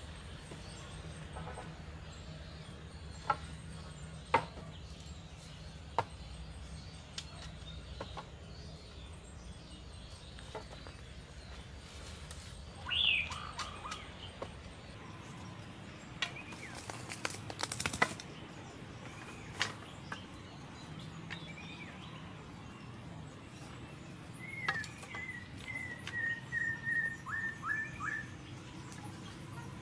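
Wooden poles knocking against each other as they are set against a lean-to frame, in a handful of sharp clacks. Birds call over it: one downward-gliding call about halfway through, and a quick run of about eight repeated chirps near the end.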